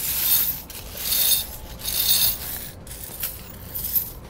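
Steel square-link tire chains clinking and scraping as they are dragged across concrete and slid behind a tire, in four or five short rattling bursts.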